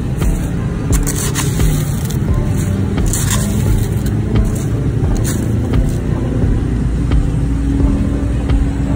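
A plastic scoop scraping and digging into crushed ice in a plastic tub, a few separate scrapes a second or two apart, over a steady low rumble.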